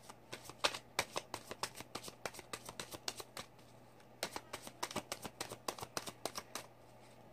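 A deck of Archangel Oracle cards being shuffled by hand: a quick, irregular patter of soft card clicks, pausing briefly about halfway.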